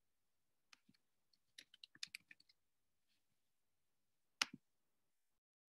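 Faint computer keyboard typing: a quick, irregular run of about a dozen key clicks, then one sharper double click-clack near the end.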